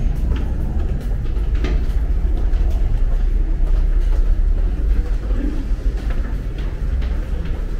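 Low, steady rumble of a subway train, heard from a station passageway, with a few faint footstep clicks on the tiled floor.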